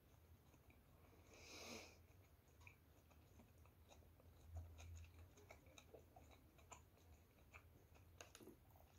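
Near silence with faint mouth sounds of chewing: soft scattered clicks, and a brief breathy sound about one and a half seconds in, over a low hum.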